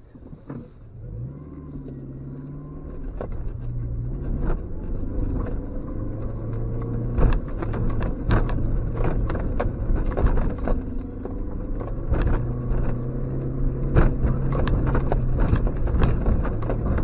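Suzuki X-90's 1.6-litre four-cylinder engine driving the car up a rough, muddy trials track, getting louder from about a second and a half in. Frequent sharp knocks and rattles run through it as the car goes over the bumps.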